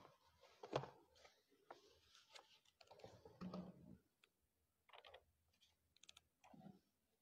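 Faint paper rustling and small clicks as the pages of a large book are leafed through and handled, in several separate short bursts.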